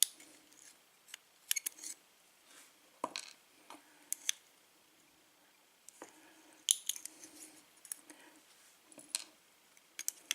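Scattered light metallic clicks and clinks, irregularly spaced, of small padlock pins and tools being handled.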